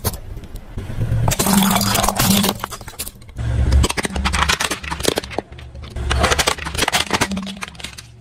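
A car tyre rolling over and crushing hard plastic toys, stacking cups and then a toy excavator, with repeated cracking and snapping of plastic that comes thickest in the second half. The car's engine runs low underneath.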